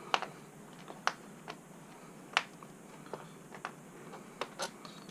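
A handful of small, sharp, irregular clicks from a Phillips screwdriver working a tight screw out of a laptop's base.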